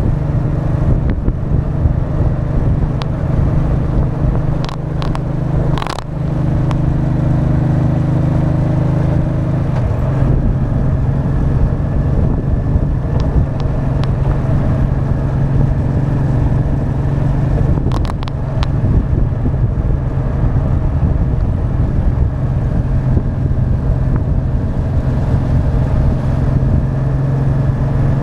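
Honda Deauville 650's V-twin engine running as the motorcycle rides along, with wind and road noise over a front-mounted camera. The engine note dips briefly about six seconds in and again near eighteen seconds, and changes pitch about ten seconds in.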